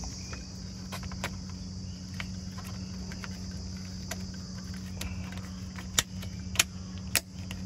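Plastic cover being fitted over a car door's metal striker plate: small plastic-on-metal clicks and taps, then three sharper clicks about half a second apart near the end as it snaps into place. Crickets chirr steadily behind.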